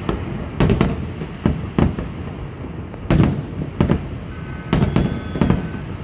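Aerial firework shells bursting: a string of about ten sharp bangs at irregular intervals, some in quick pairs, over a steady low rumble.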